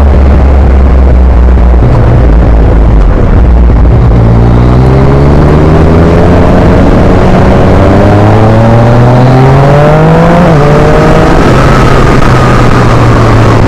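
Yamaha MT-09's 847 cc three-cylinder engine through an Akrapovic exhaust on the move. It runs low for a few seconds, then climbs steadily in revs, drops sharply in pitch at an upshift about ten seconds in, and settles into a steady run.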